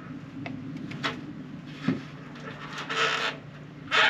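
A few short scrapes and rubs of small hardware being handled, the longest about three seconds in, over a steady low hum.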